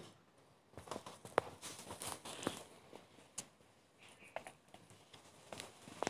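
Irregular clicks, knocks and short rustles, scattered unevenly, the sharpest about a second and a half in.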